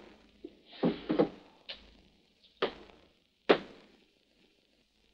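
Slow footsteps on a hard floor, a sharp echoing thump roughly once a second, ending about four seconds in.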